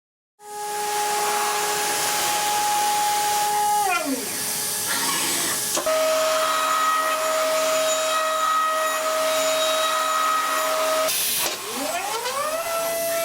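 High-speed CNC milling spindle whining at a steady high pitch over a hiss of cutting noise. About four seconds in the pitch falls away, then it settles on a new steady pitch, and near the end it dips and glides back up as the spindle speed changes.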